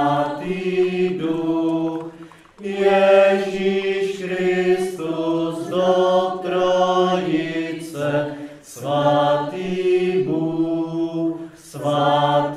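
Background choral music: voices singing slow, chant-like chords in long held notes that change every second or so, with short pauses between phrases.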